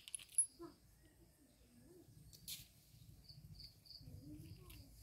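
A few small sharp metallic clicks as a circlip is handled on a tractor hydraulic pump's drive shaft, the loudest about half a second in. Faint bird chirps sound underneath.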